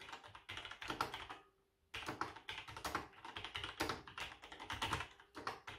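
Typing on a Logitech G613 wireless mechanical keyboard with Romer-G tactile switches: a quick, quiet run of key clicks that pauses briefly about a second and a half in, then carries on.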